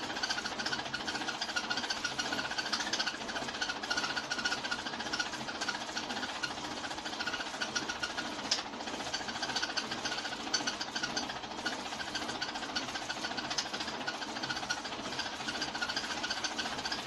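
Hand-cranked 1908 35mm film projector running: a steady, rapid mechanical clatter.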